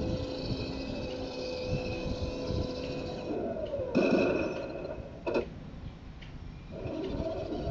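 RC M1A2 Abrams tank running with its onboard sound unit playing a rumbling engine effect through a small speaker. A steady whine runs for the first three seconds or so while the turret traverses. A louder swell comes about four seconds in and a short sharp sound a little after five seconds.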